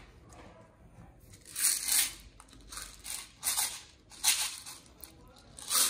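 Plastic BB pellets rattling inside a plastic jar as it is tipped and shaken to pour a few out of its spout, in several short bursts.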